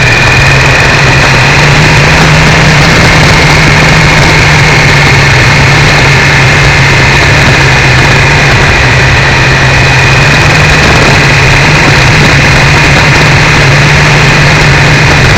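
Triumph 955i motorcycle's three-cylinder engine running at steady revs on the move, heard very loud and harsh through a cheap camera mounted on the bike's foglight.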